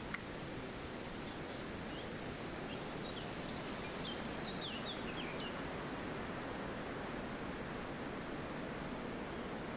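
Steady wind through a forest, with a few short, high bird chirps scattered through the first half.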